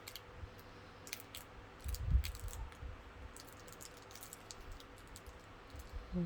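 Irregular light clicks and taps of a plastic sound toy being handled, with a soft low thump about two seconds in.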